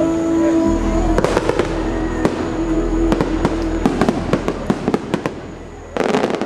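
Aerial fireworks shells bursting in rapid succession, many sharp bangs with a low rumble, over the show's music, whose held chord drops away about a second in. Near the end a dense volley of crackling bangs.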